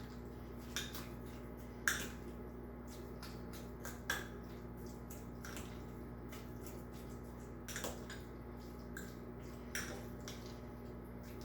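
Fork tapping and scraping against a small bowl while mashing avocado into guacamole, a few irregular clinks with soft squishing between.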